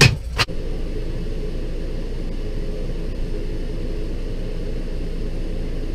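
A couple of sharp knocks right at the start, then a steady low mechanical hum.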